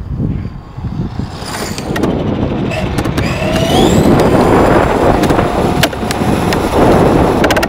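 Tamiya TA-05 IFS RC car's 540 electric motor whining, rising in pitch as the car accelerates, over a loud rumble of tyres and chassis on the rough court surface heard from the on-board camera. A quick run of clicks comes near the end.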